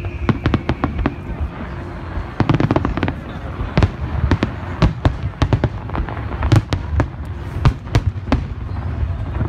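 Aerial fireworks shells bursting in an irregular, rapid string of sharp bangs and crackles, with a dense flurry of reports about two and a half seconds in.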